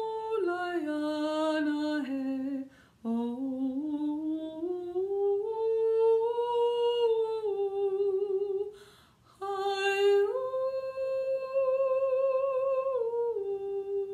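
A woman's solo wordless singing for a sound healing, hummed long notes that step and glide slowly down and then back up, with two short breaths, about three seconds in and about nine seconds in.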